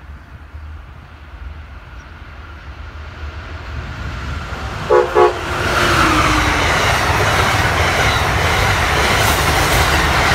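Amtrak passenger train led by an ACS-64 electric locomotive approaching and passing at speed. A rumble builds, the horn gives two short blasts about five seconds in, then the wheels and cars make a loud, steady rush on the rails.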